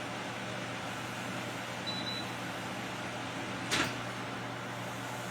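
Air fryer running with a steady fan whir and low hum. A short high beep sounds about two seconds in, and a single sharp click comes a little after the middle.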